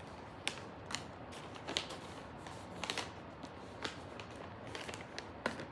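Tarot cards being handled and turned over: a string of light, irregular card snaps and rustles.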